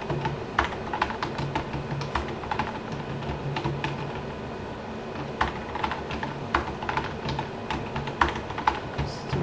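Typing on a computer keyboard: irregular bursts of keystroke clicks with short pauses between them.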